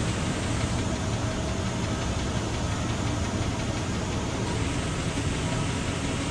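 Steady low rumble and hiss of a workshop's background machinery, with no distinct knocks or clanks.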